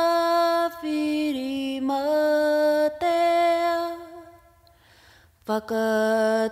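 A solo voice singing a Māori chant unaccompanied, holding long notes that step down in pitch. It fades out about four seconds in, pauses for about a second, then comes back in on a lower note.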